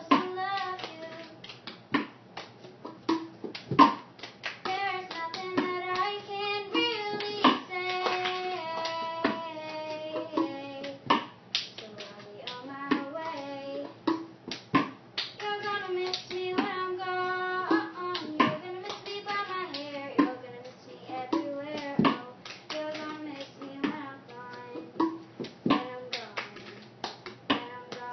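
A young girl singing while keeping time with a cup, tapping it and clapping her hands in a repeating cup-game rhythm that gives sharp knocks and claps under her voice.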